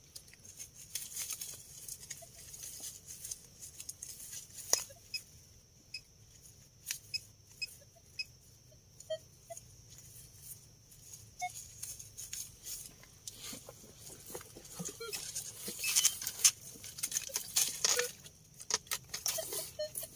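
Soil and small stones being scraped and dug through by hand in a small hole while searching for more coins: an irregular patter of small clicks and scrapes that grows busier near the end.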